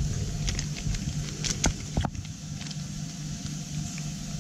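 Plastic spice sachet crinkling with scattered short crackles as it is torn open and squeezed out over a bowl, over a steady low background rumble.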